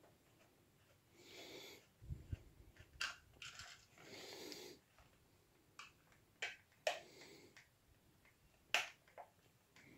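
Small Phillips screwdriver working at the retaining screws in the plastic underside of an OO gauge model train car, with hands handling the plastic body: faint scattered sharp clicks and soft rubbing, the loudest click near the end.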